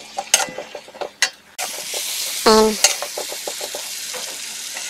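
Chopped red chili and basil leaves frying in melted butter in a metal wok, stirred with a metal spatula. A few light taps and scrapes of the spatula, then about one and a half seconds in a steady sizzle starts suddenly and carries on under the stirring.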